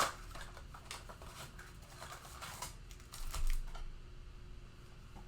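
Hands handling trading cards and their packaging: scattered light clicks and brief rustles, with a louder handling bump about three seconds in.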